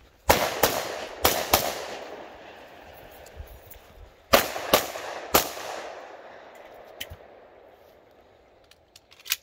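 Colt Delta Gold Cup 10mm pistol firing seven shots in two strings: four quick shots in the first second and a half, then three more about four seconds in, each followed by an echo that trails off.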